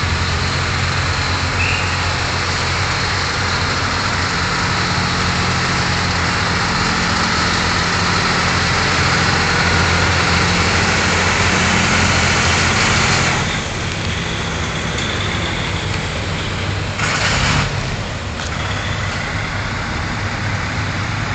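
Articulated lorry's diesel engine running as the truck moves slowly past hauling a boat, a steady low drone that drops away about two-thirds through. A short burst of noise follows a few seconds later, over a steady traffic hum.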